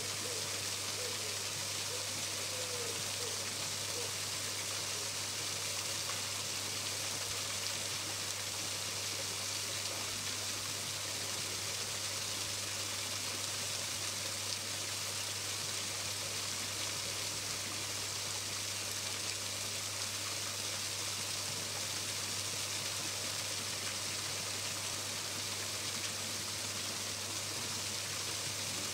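Steady rush of an artificial waterfall splashing into a pool.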